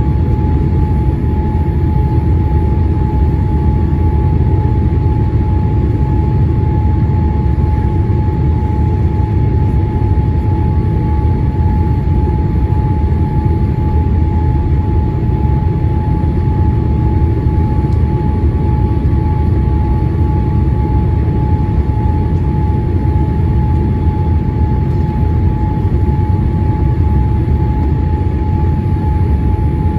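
Cabin noise at a window seat of a Boeing 787-8 Dreamliner on descent with flaps extended: a steady, loud, deep rumble of airflow and engines, with a steady high tone running through it.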